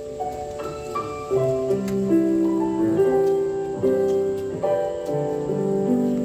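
Slow piano music with held chords and a melody line, notes changing about once a second, with no singing.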